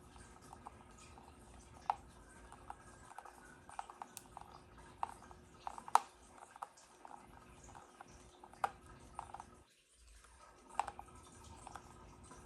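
Handling noise: irregular light clicks and taps, with a few sharper knocks about two, six and nine seconds in, as of plastic parts and packaging being handled.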